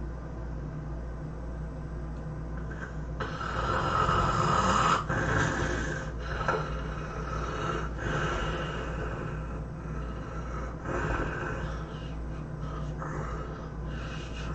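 A person snoring loudly over a steady low hum. A long, rough snore about three seconds in is the loudest sound, followed by a few shorter snores.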